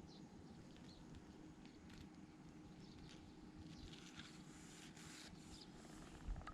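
Near silence: faint outdoor ambience with a low steady hum, scattered faint high chirps and a short soft thump near the end.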